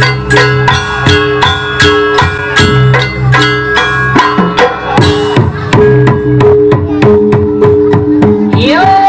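Jaranan Buto gamelan music: drum and gong strikes in a steady beat, about three to four a second, over ringing held gong tones. Near the end a higher melodic line slides upward and enters.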